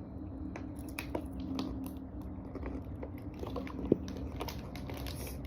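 A person biting and chewing food close to the microphone: many small crisp clicks, with one sharper click about four seconds in.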